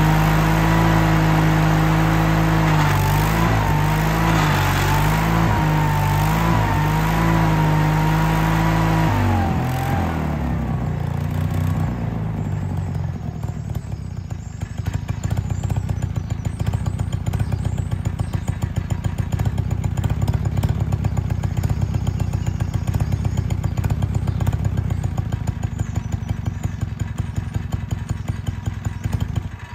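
Case 1816C skid steer's small gasoline engine running fast under strain with a wavering whine as the drive tries to move the machine, a sound the owner likens to starving, which he puts down to the hydraulic oil having drained out. About ten seconds in the engine slows to a steady, fast-pulsing idle.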